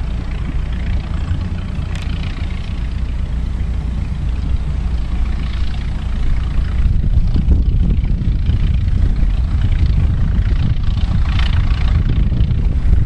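Narrow-gauge train led by a small diesel locomotive running past with its coaches, a low engine and wheel rumble that grows louder as it approaches.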